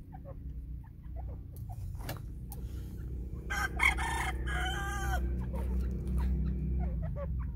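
Fowl calling: a run of short peeping chirps, then about halfway through a loud call of about two seconds broken into several rising notes, over a steady low rumble.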